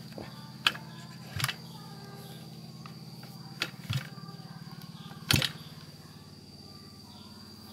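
Five sharp knocks and clicks from handling, the loudest about five seconds in, over a steady low hum and a thin steady high whine.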